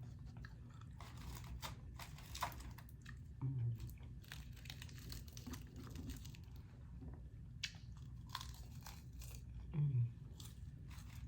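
Close-miked eating: chewing with many short, sharp crunches from crisp food. A brief low "mm" hum comes a few seconds in and again near the end.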